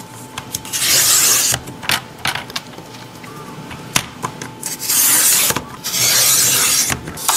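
Small paper trimmer's blade cutting through a stack of five sheets of cardstock: a short cutting stroke about a second in and a longer one from about five seconds in, with clicks and taps between them.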